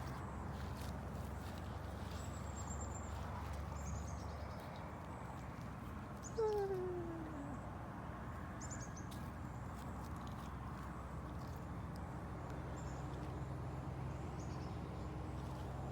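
Domestic cat meowing once, about six seconds in: a single call of about a second that falls in pitch.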